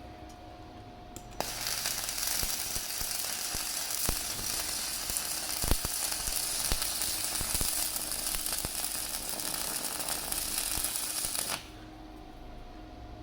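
Electric arc welding: a steady crackling hiss with scattered sharp pops, struck about a second and a half in and cut off suddenly about ten seconds later when the arc is broken.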